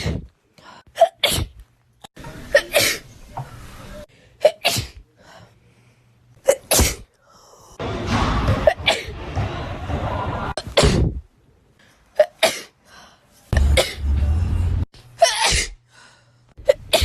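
A young woman sneezing again and again from allergies: a string of short, sharp sneezes, several coming in quick pairs.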